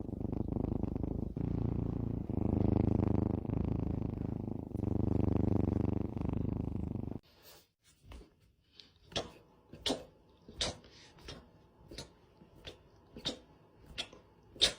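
A domestic cat purring loudly close to the microphone, with short breaks where it breathes, stopping abruptly about seven seconds in. A series of sharp, irregular clicks and taps follows.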